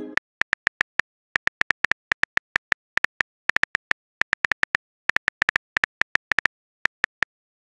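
Simulated phone-keyboard typing clicks: quick runs of short, sharp taps broken by brief pauses, one tap per letter as a text message is typed.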